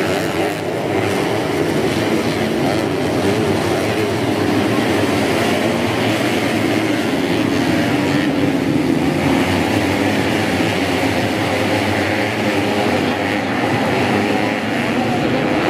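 A pack of modified underbone motorcycles racing on a dirt grasstrack track, their engines running hard together in a steady, continuous blend.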